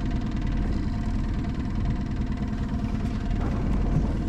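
Boat's outboard motor running steadily.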